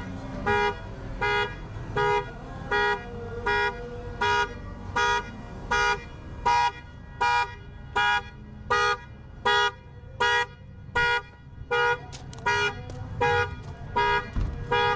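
Car alarm sounding a vehicle's horn in short, evenly spaced honks, about four every three seconds, really loud.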